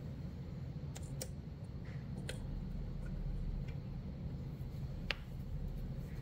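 Small screws and a screwdriver being handled while fastening an aftermarket MAP sensor to the intake: a few scattered sharp metal clicks and ticks, the loudest about five seconds in, over a low steady hum.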